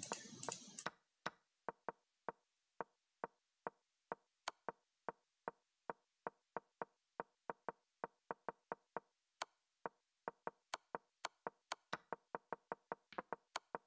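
Chess software's move sounds: a faint, quick series of short wooden knocks, about three a second, one for each move as the game is stepped through, with a few sharper clicks among them. A brief clatter of clicking comes in the first second.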